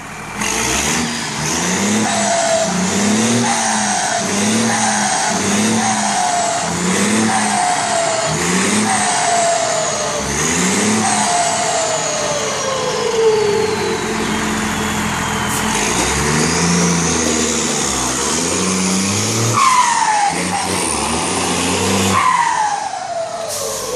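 Volkswagen 17-210 bus's turbo-diesel engine revved in quick blips at standstill, about nine in a row roughly one a second, each followed by a falling turbo whistle; its Garrett turbo has been modified with a 'pente' to make it whistle ('sing'). About two thirds of the way through it is driven off, with more falling turbo whistles as it pulls away.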